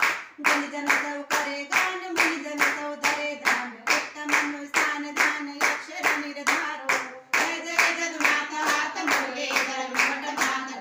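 A group of women singing a Hindu devotional bhajan in unison, with steady rhythmic hand clapping of about three claps a second keeping the beat.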